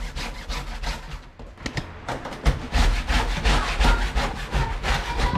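Rhythmic back-and-forth scrubbing, about three to four rubbing strokes a second, as surfaces are cleaned.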